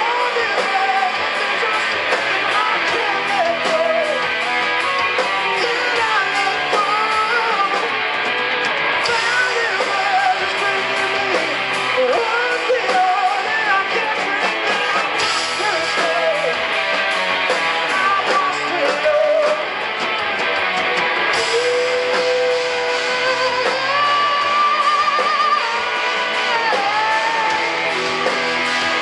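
Live rock band playing at full volume: distorted electric guitars and drums, with a lead melody that bends and wavers in pitch over them.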